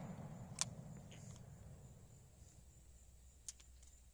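The echo of a large-bore revolver shot rolling away and fading out, then near quiet with two faint, short clicks, one about half a second in and one near the end, between shots.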